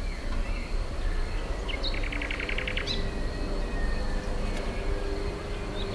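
Countryside ambience: small birds chirping, with a rapid trill of about a dozen notes about two seconds in, over a steady low rumble.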